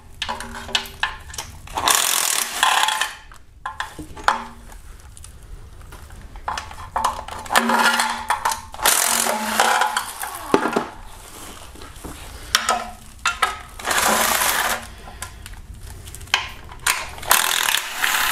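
Power ratchet spinning out 10 mm oil pan bolts in short runs of about a second each, with clicks and knocks of the tool and socket on the engine between runs.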